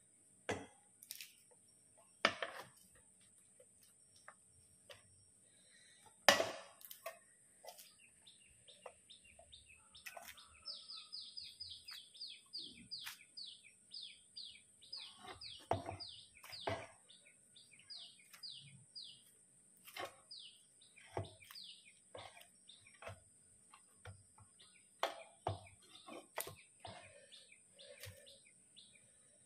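Scattered knocks and clicks of handling a plate and roasted eggplants being peeled, the sharpest about 6 seconds in. In the middle a bird calls with a long run of quick, high, downward chirps, about four a second.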